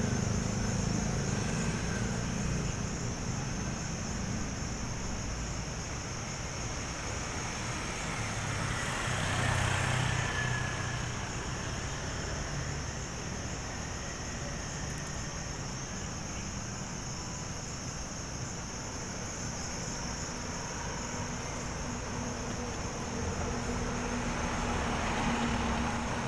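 Street traffic ambience: a steady hum of a city street, with a vehicle passing about ten seconds in and a louder one passing close near the end.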